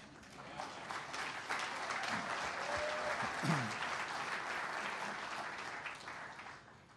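Audience applauding: the clapping builds over the first second, holds, then dies away near the end, with a voice or two calling out briefly in the middle.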